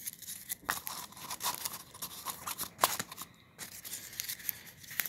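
Crinkling and irregular clicking of paper sticker sheets and their packaging being handled close to the microphone.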